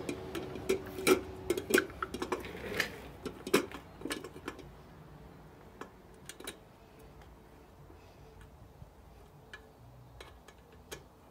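Sharp metallic clicks and taps as the chrome headlight and its mounting screws are handled and fitted into the headlight bucket with a screwdriver. They come thick and loud for the first few seconds, then thin out to a few faint ticks.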